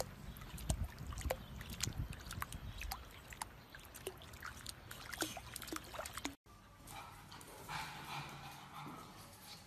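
Small splashes and drips of water as a pug puppy, held in a shallow inflatable paddling pool, paddles its paws: many quick light splashes. After about six seconds the sound cuts off abruptly to something fainter and softer.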